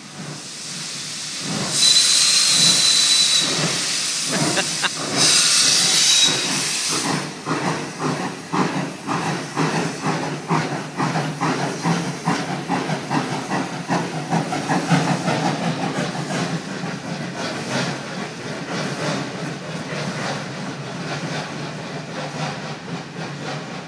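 Steam locomotive giving two whistle blasts over a loud hiss of steam, the first about two seconds long and the second about a second and a half, then pulling away with a steady rhythm of exhaust chuffs, several a second.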